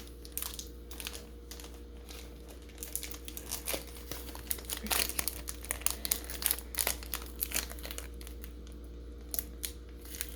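Pokémon booster pack's plastic-foil wrapper crinkling and tearing as it is worked open by hand, in an irregular run of small crackles that is busiest around the middle.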